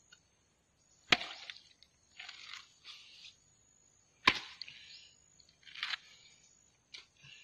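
Machete chopping open a young green coconut: two sharp chops about three seconds apart, with softer short knocks between and after as the husk is split.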